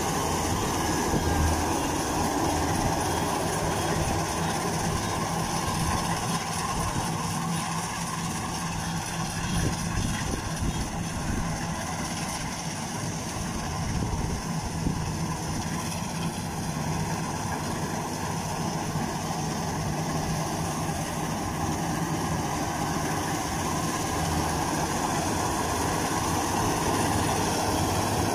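Kubota DC-93 combine harvester running steadily while harvesting rice, its diesel engine humming under the constant din of the cutting and threshing machinery.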